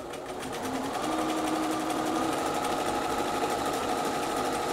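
Bernina sewing machine stitching a seam through layered fabric: its motor picks up speed over the first second, then runs steadily with a fast, even stitching rhythm.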